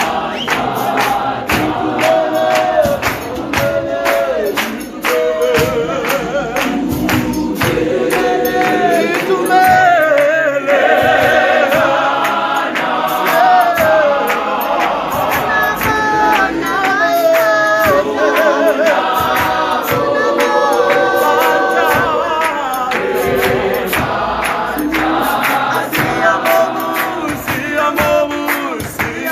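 Gospel choir singing a Sesotho song in full harmony, with a steady beat of hand claps.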